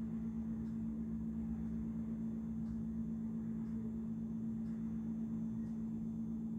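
Steady low electrical or motor hum with faint soft ticks about once a second.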